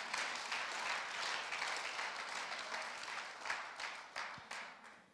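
A congregation applauding: dense clapping that thins out and dies away near the end.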